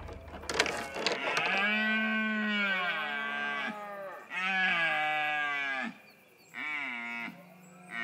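Red deer in the rut: a few sharp clacks of antlers near the start, then three long bellowing calls, each falling in pitch at its end, the last one shorter.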